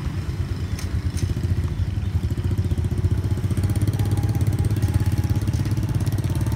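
Small motorbike engine idling close by with an even, rapid putter, growing a little louder about two seconds in. A couple of light clicks sound about a second in.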